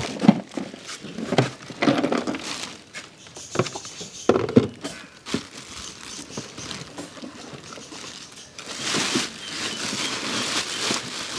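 Clear plastic wrapping crinkling and rustling as it is pulled off a children's ride-on toy jeep, with scattered knocks from handling the jeep's plastic body. The rustling becomes steadier and louder about eight and a half seconds in.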